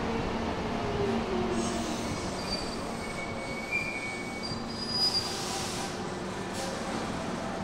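Hankyu electric train slowing at the platform: its motor whine falls in pitch over the first second or so, then short high-pitched wheel and brake squeals come as it nears a stop, with a brief hiss about five seconds in.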